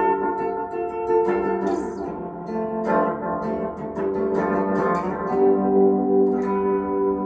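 Electric cigar box guitar run through effects, picking single notes and short chords that ring on and overlap. Near the end one note repeats in quick pulses.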